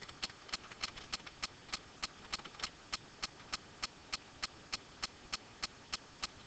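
Steady, evenly spaced light clicking, about three clicks a second.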